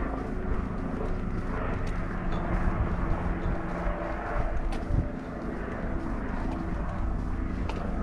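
A steady, distant engine drone with a low, uneven rumble beneath it.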